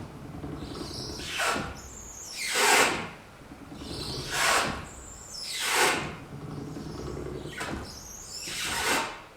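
Windshield-wiper mechanism creaking while the wipers run: six loud squeaks in three pairs, one pair about every three seconds, so one squeak for each stroke of the wiper. A steady low motor hum runs under them.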